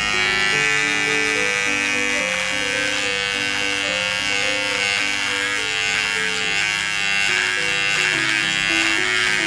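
GSE GS-007 cordless mini hair trimmer's motor buzzing steadily as its blade is run over chin beard stubble.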